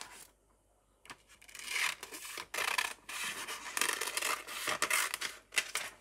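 Scissors cutting through a sheet of vellum paper: a run of crisp, rasping cuts starting about a second in.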